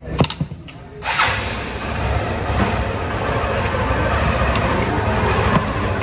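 Vehicle running: a steady rumble and hiss of vehicle noise that comes in about a second in after a couple of clicks, then holds steady.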